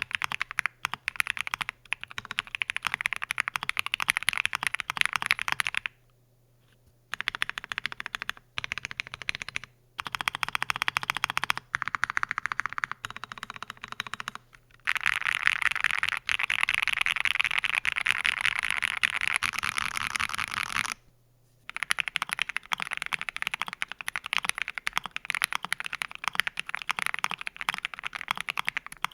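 Fast typing on an Akko ACR Pro Alice Plus mechanical keyboard fitted with lubed Gateron CJ linear switches and PE switch foam: quick runs of crisp keystroke clacks with a few short pauses. After a brief silence about 21 seconds in, the typing resumes on the same board with case foam added.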